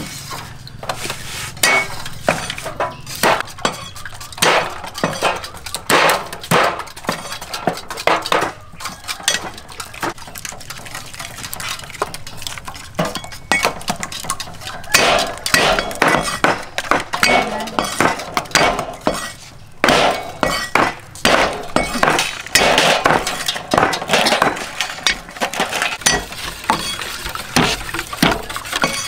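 Hand food-prep sounds: the shells of hard-boiled eggs cracking as they are peeled, a knife tapping and cutting garlic cloves on a wooden chopping board, and a wire whisk clinking against a steel bowl as eggs are beaten near the end. Many short, irregular clicks and knocks.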